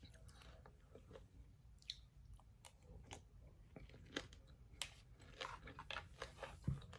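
Faint chewing of a mouthful of berries and pomegranate seeds, the seeds crunching in scattered soft clicks and crackles.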